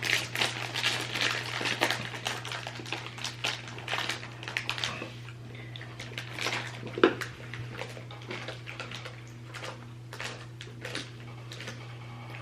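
Crackling and clicking of a candy package being opened and handled, dense for about five seconds and then thinning to scattered clicks with one sharper click, over a steady low hum.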